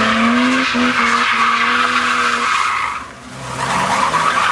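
BMW sedan drifting in circles: the engine is held at high revs while the rear tyres squeal and scrub on the pavement. The squeal drops away briefly about three seconds in, then picks up again.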